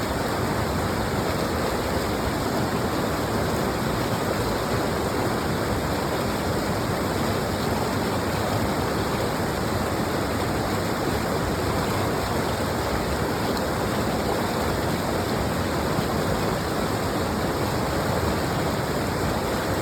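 Stream of water rushing steadily, an even unbroken hiss of flowing water.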